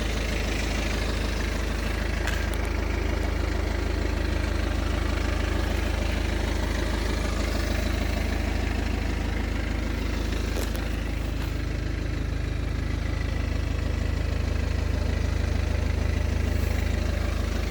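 BMW 318d's 2.0-litre four-cylinder turbo diesel idling steadily, a constant low hum.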